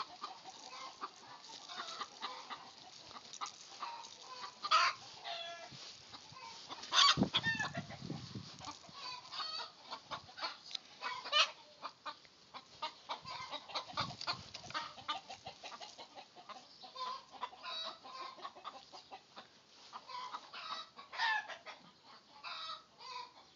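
Chickens clucking on and off in many short calls, with a thump about seven seconds in.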